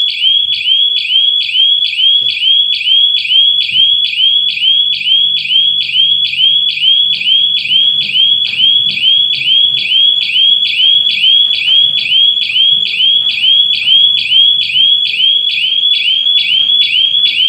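Electronic siren of a triggered GSM burglar alarm sounding continuously: a loud, high-pitched, rapidly repeating rising chirp, about three to four a second, signalling a detected security breach while the system is still armed.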